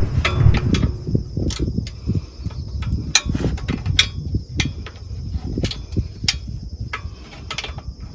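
Ratchet wrench clicking in short, irregular strokes while loosening the 10 mm transmission pan bolts. A steady high-pitched insect drone, like crickets, runs underneath.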